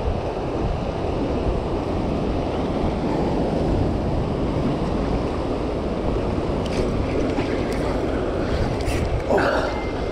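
Steady rush of turbulent tailwater pouring out below a hydroelectric dam with its generators running, mixed with wind buffeting the microphone. A few light clicks come near the end.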